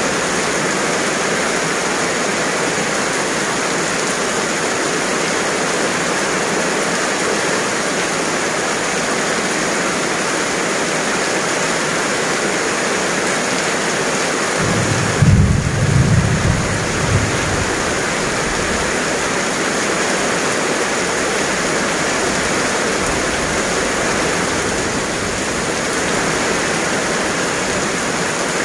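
Heavy rain falling steadily on a road and tiled pavement, a dense even hiss. About halfway through, a low rumble of thunder rises suddenly and lasts two or three seconds.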